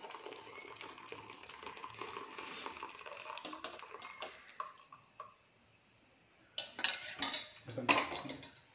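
Hot tea poured from a pan through a strainer into a cup, followed by scattered metal clinks and, after a short quiet pause, a cluster of clatter from the strainer and pot near the end.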